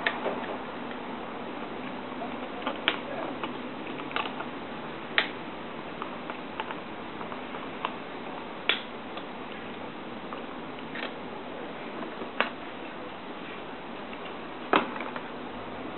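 Sharp clicks at uneven intervals from a flat-blade screwdriver prying a desoldered DIP chip off a printed circuit board, over a steady hiss; the loudest click comes near the end.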